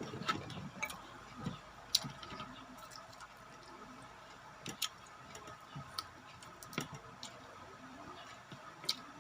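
Scattered clicks and light knocks of someone eating a meal: utensils against a plate and chewing, at irregular intervals.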